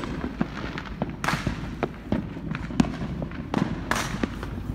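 Neighbourhood fireworks and firecrackers going off in an irregular string of sharp pops and bangs, with two bigger bursts, about a second in and near the end, that trail off. Heard from inside a moving car, with its low engine and road rumble underneath.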